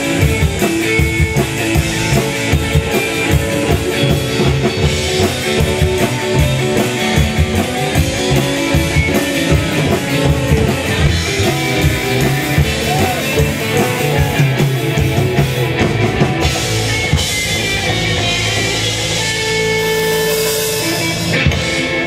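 A rockabilly band playing live: electric guitar, upright double bass and drum kit, with a steady driving beat. About three quarters of the way through, the drumming eases and held notes ring out as the song winds down.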